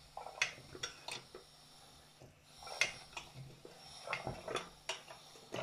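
Hand pump of a Tilley X-246-B paraffin pressure lantern being worked gently, with a scattering of small metallic clicks and knocks at uneven spacing as the plunger moves. The fuel tank is being pressurised with the valve already open, to light the burner Bunsen-style.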